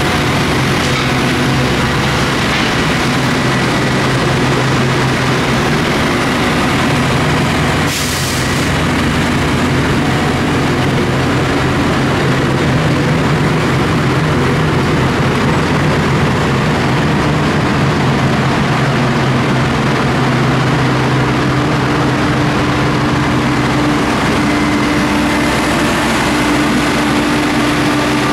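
Diesel engines of a subway snow-thrower work train, a work locomotive and a snow-thrower car, running with a steady heavy drone as the train moves along. There is a brief dip and a short sharp noise about eight seconds in, then the same steady engine sound.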